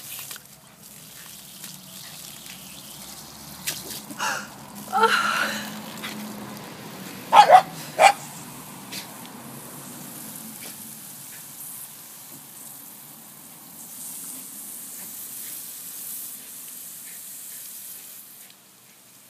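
A Shiba Inu gives a few short yelps and then two sharp barks close together, the loudest sounds, about halfway through. A water jet then sprays with a steady hiss until just before the end.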